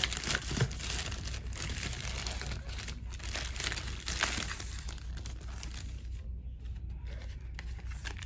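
Thin plastic packaging bag crinkling as it is crumpled and pulled by hand, dying down for the last couple of seconds.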